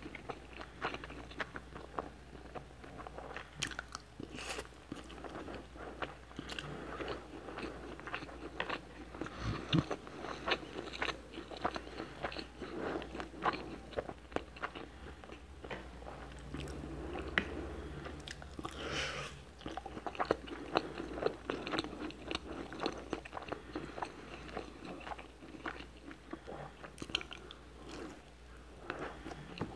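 Close-miked chewing of rice and hamburger: a steady run of small wet mouth clicks and soft crunches, with a bite into a piece of burger near the end.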